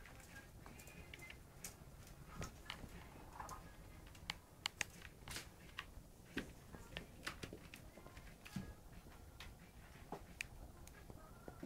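Scattered, irregular light clicks and taps from month-old Neva Masquerade kittens playing: paws and claws on a rug and a wicker basket, and a small toy ball being batted.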